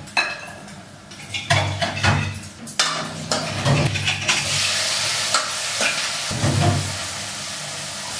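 A metal ladle clinks and scrapes against a steel kadai as food is stirred and turned in hot oil, with the oil sizzling; the sizzle grows loud about halfway through.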